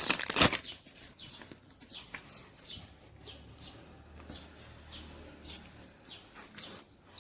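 Faint bird chirps: short high notes repeating about twice a second.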